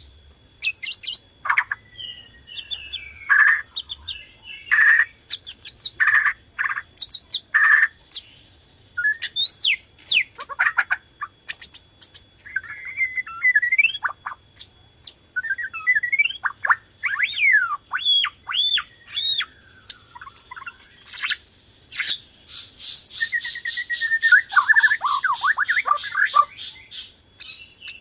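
A Borneo white-rumped shama singing a long, varied song of loud whistles, pitch glides and sharp notes, with a fast rattling run of notes about three-quarters of the way through.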